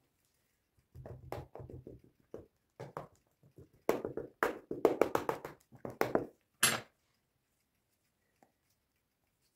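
Fork pricking holes in a sauced pizza base on a baking tray: a quick irregular run of taps and clicks, sharpest and loudest from about four seconds in, stopping just before seven seconds.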